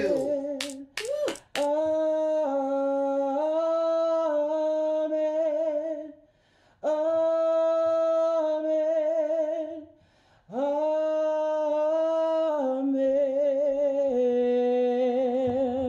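A single voice singing unaccompanied, humming-like: three long held phrases with vibrato, each starting with a scoop up into the note and separated by short pauses. A few brief clicks come about a second in.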